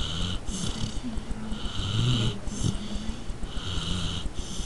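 Chihuahua snoring in her sleep: a wheezy, rasping snore on each breath, a longer rasp followed by a shorter one, about three breaths.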